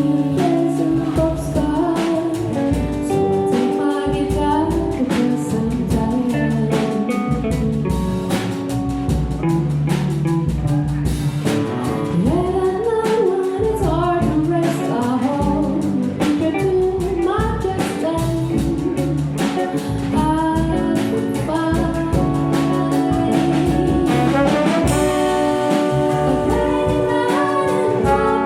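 Big band playing a slow jazz ballad, with a brass section and a vocalist singing over steady drums.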